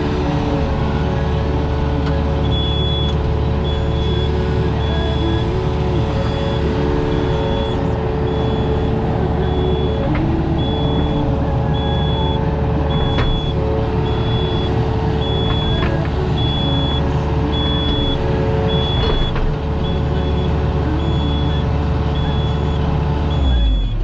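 Diesel engine of compact tracked earthmoving equipment running steadily at working speed, with a backup alarm beeping about once a second from a couple of seconds in. A few faint knocks come through now and then.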